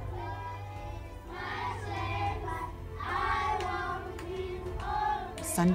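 Children singing, in phrases of held notes about a second long, over a steady low hum.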